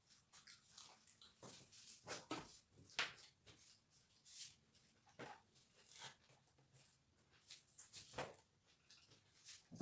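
Faint, irregular chewing and mouth smacks of someone eating a meal of rice and salad, a scatter of soft clicks at uneven intervals with a sharper one about three seconds in.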